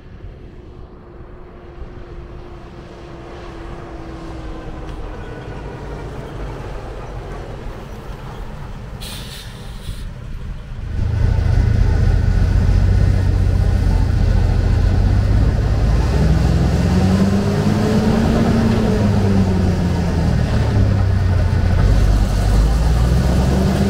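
1945 Mack NO 7.5-ton prime mover approaching, its engine growing steadily louder, with a brief hiss about nine seconds in. From about eleven seconds the engine is heard loud from inside the cab, running under way with its pitch rising and falling twice as the truck pulls through the gears.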